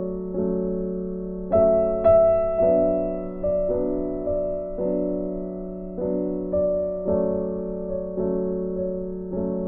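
Background music: a slow, gentle piano piece, a new note or chord struck about every half second and fading away.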